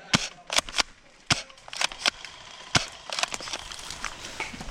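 Gel blasters firing: about ten sharp pops, irregularly spaced, in single shots and quick pairs.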